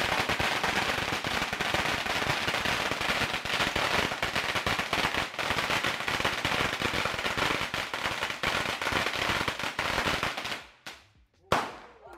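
A long string of Chinese New Year firecrackers hanging from a balcony goes off in a dense, rapid crackle of bangs. The crackle dies out about ten and a half seconds in, and one last loud bang follows about a second later.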